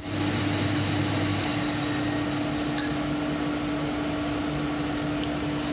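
A steady mechanical hum with one constant tone, with a lower drone that drops away about a second and a half in, and a couple of faint clicks.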